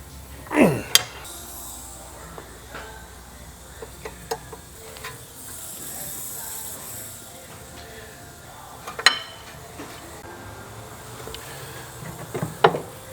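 Workshop handling sounds during brake reassembly: a few sharp clinks of metal tools and parts, one each near the start and end and two in between, with a short falling whine just before the first clink and a brief faint hiss in the middle.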